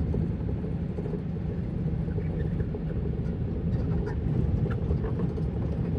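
Truck running on the road, heard from inside the cab: a steady low engine and road rumble.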